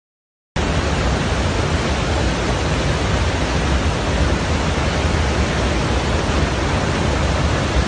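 Loud, steady rush of floodwater pouring down from the hills in torrential rain, with a deep rumble underneath. It cuts in suddenly about half a second in, after a moment of silence.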